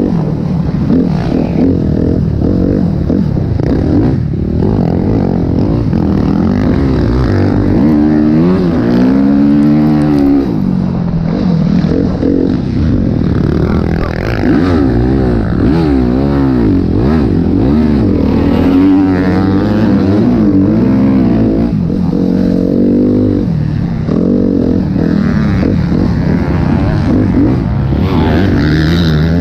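Motocross dirt bike engine heard close up from a camera on the bike, revving hard and repeatedly climbing and falling in pitch as the rider accelerates, shifts and backs off round the track.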